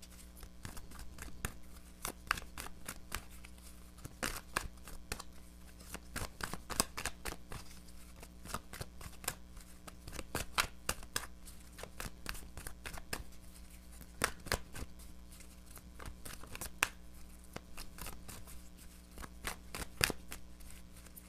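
A deck of tarot cards being shuffled by hand: many quick, irregular card clicks and slaps run on throughout.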